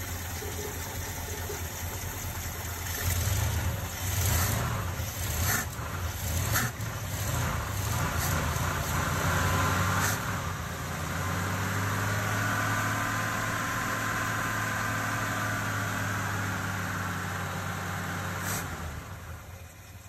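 1969 Ford F250's V8 running on an Edelbrock four-barrel carburetor while its idle mixture screws are turned. The engine speed rises and falls unevenly for the first several seconds, with a few sharp clicks, then holds a steady idle and drops away near the end. The carb is tired, and the owner says it could use a rebuild: it doesn't give good acceleration.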